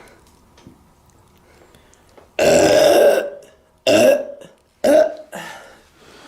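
A woman belching loudly: one long belch about two and a half seconds in, then two shorter belches about a second apart and a weaker trailing one.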